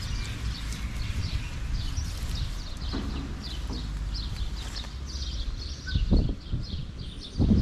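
Small birds chirping rapidly and continuously, several short chirps a second, over a steady low rumble, with a few soft thumps about six seconds in and near the end.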